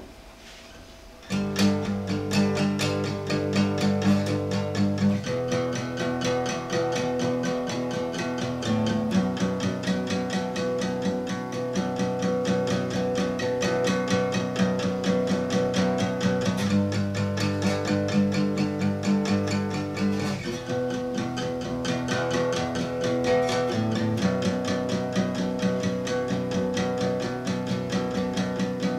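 Steel-string acoustic guitar strummed in a repeating chord progression, starting about a second in, with the chord changing roughly every four seconds.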